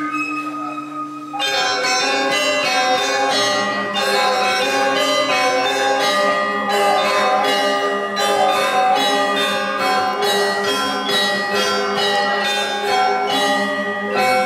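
Music of bell-like struck metal tones, many notes in quick succession over sustained pitches, coming in suddenly about a second and a half in after a few held notes.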